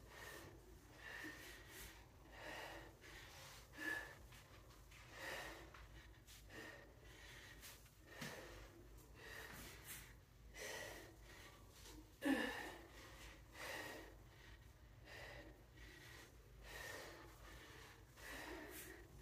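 Heavy breathing of a person working out with dumbbells: an audible breath about every second and a half, in time with squat and deadlift reps. The loudest sound comes about twelve seconds in.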